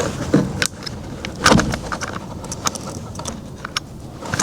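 Scattered small plastic clicks and rattles from handling a van's electric window switch and pulling its wiring connector plugs off, with one louder click about a second and a half in.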